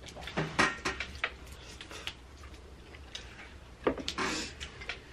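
Crab and shrimp shells being cracked and peeled by hand: a quick run of sharp cracks and clicks in the first second and a half, then a loud crack just before four seconds in followed by a short rustle.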